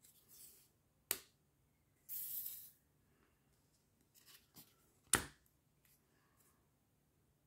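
Paper cards being handled on a wooden floor: a brief rustle of sliding paper and a few sharp taps and clicks as a card is picked up and set down, the loudest tap just after five seconds in.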